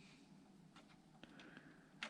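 Near silence, with a few faint light clicks a little under a second in and just after the middle.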